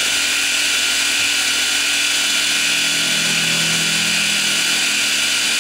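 Grizzly milling machine running an end mill through a metal block, a steady cutting hiss and whine while it finishes the top and the small stud of the part.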